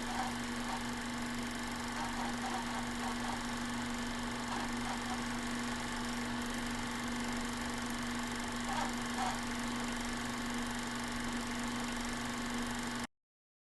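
Steady mechanical hum over even room noise, with no rhythm of breaths in it; it cuts off abruptly near the end.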